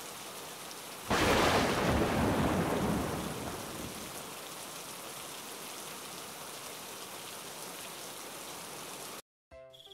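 Rainstorm: steady rain with a thunderclap about a second in that rumbles away over a couple of seconds. The rain cuts off suddenly near the end.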